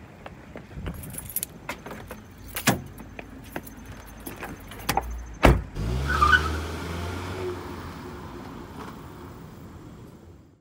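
Keys jingling and scattered clicks, then a loud thud about five and a half seconds in, after which a Nissan Altima sedan's engine runs as the car pulls away, fading gradually until it cuts off at the end.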